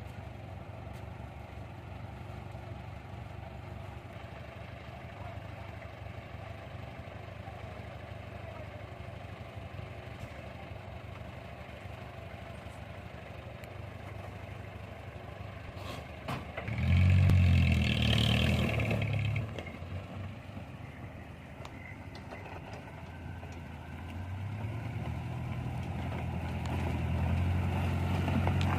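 Heavy vehicle's diesel engine running steadily, revved hard for about two seconds past the middle, then running louder again near the end.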